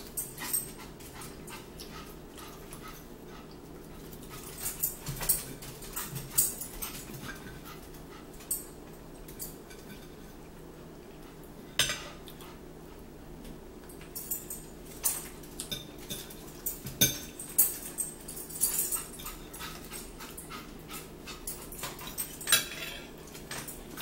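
Fork clicking and scraping on a plate, with chewing and mouth sounds in scattered clusters, over a steady low hum.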